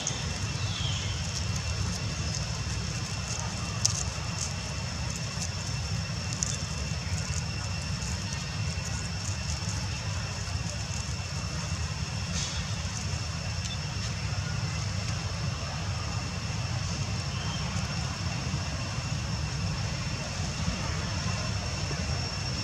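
Steady outdoor background: a constant low rumble under a thin, high insect drone, with a few sharp clicks.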